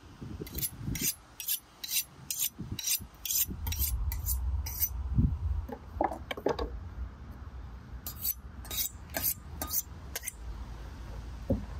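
Two steel blades, a cleaver and a long kitchen knife, scraped against each other in quick bright strokes, about two or three a second, as the one is honed on the other. The strokes come in two runs, a pause of about three seconds between them.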